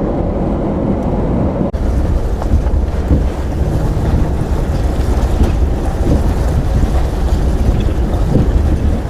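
Steady low rumbling noise of a vehicle on the move, with wind buffeting the microphone; it grows heavier after a sudden break about two seconds in.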